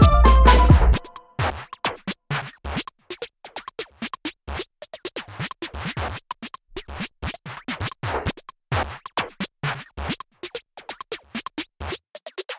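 Background electronic music. A full passage with a steady heavy bass cuts off about a second in, leaving sparse, irregular, scratch-like clicks and drum-machine hits.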